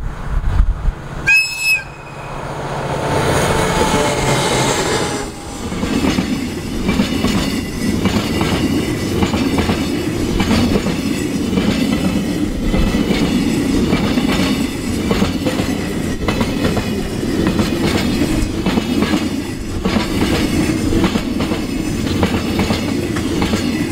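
JR Freight DF200 diesel-electric locomotive gives one short, high whistle blast about a second in, then passes close by with its engines running, their pitch falling as it goes past. From about five seconds in, container wagons roll by with a steady rumble and regular clicks of wheels over rail joints.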